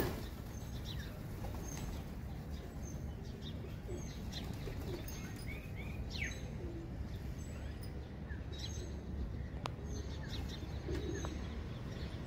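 Flock of pigeons taking off with a burst of wing flapping at the start, followed by scattered short high bird chirps and a few soft pigeon coos.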